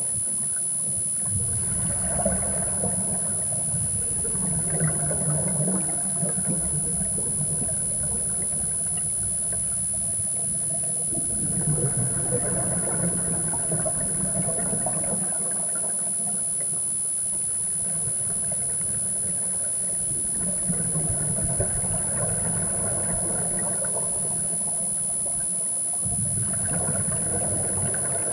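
Scuba regulator exhaust bubbles heard underwater, coming in four bouts of a few seconds about every eight to ten seconds with the divers' slow breathing, over a steady high-pitched whine.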